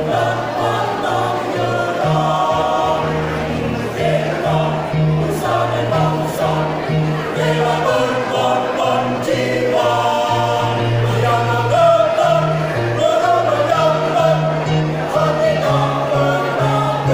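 A choir singing with instrumental accompaniment, a bass line stepping between held notes beneath the voices.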